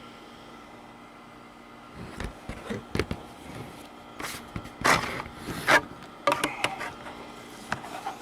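Plastic bar cover being slid on and off a cordless chainsaw's bar and chain: scattered clicks and knocks, with two louder scrapes about five and six seconds in.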